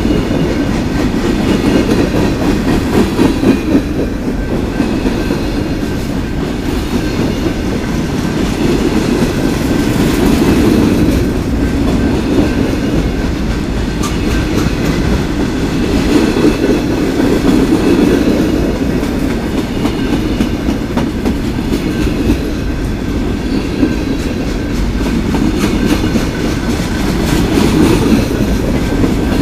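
Freight train of covered hopper cars rolling past, a steady rumble of steel wheels on rail with occasional clicks over the rail joints.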